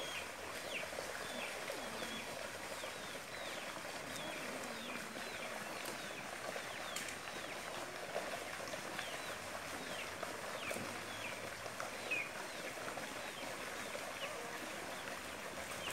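Birds chirping in a chicken run: short, high, falling chirps, several every couple of seconds, over soft outdoor background noise.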